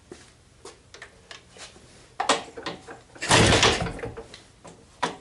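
IZh-49's single-cylinder two-stroke engine being kick-started: clicks and clunks of the kickstart, then a sharp hit and a heavy burst of sound about three seconds in, with no steady running note.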